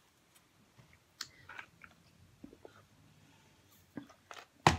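Close-miked chewing with small scattered mouth clicks, then a sip through a straw and one sharp, louder click near the end.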